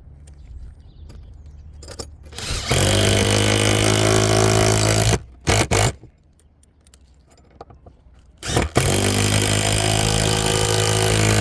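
Cordless drill driving two long 8x80 screws through a solar roof hook into a rafter: the motor spins up and runs steadily for about two and a half seconds for each screw, with two short trigger blips after the first.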